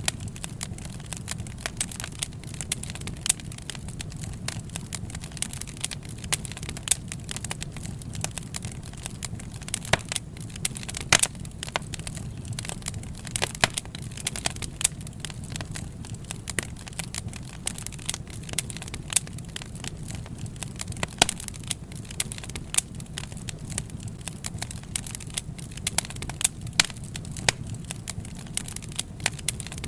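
Wood fire burning, with frequent irregular sharp crackles and pops over a steady low rumble.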